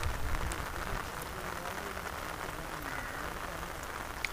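A steady rain-like hiss, with one sharp click near the end.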